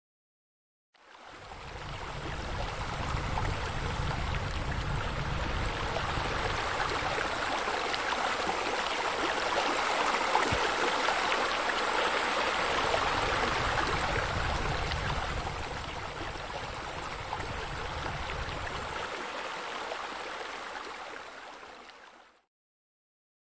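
Steady running water, a continuous even rush that fades in about a second in and fades out near the end.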